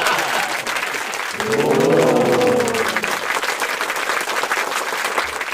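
Crowd applauding, with a drawn-out voice-like call that rises and then falls in pitch about a second and a half in.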